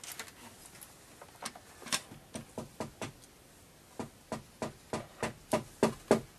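Hammering: a few scattered knocks at first, then about four seconds in a steady run of about three blows a second that grows louder.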